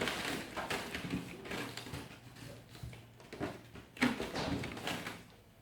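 Clicks, knocks and rustling of scissors being handled and set down one after another, with a sharper knock about four seconds in.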